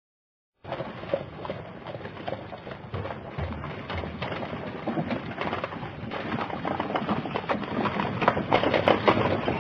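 Horses' hooves clopping irregularly on pavement as a horse-drawn funeral caisson passes, in the hissy field sound of an old newsreel. It starts suddenly about a second in and grows louder toward the end.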